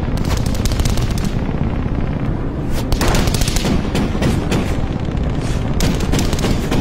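Three bursts of rapid machine-gun fire over a steady low engine drone: a sound-effect track dubbed onto silent gun-camera film.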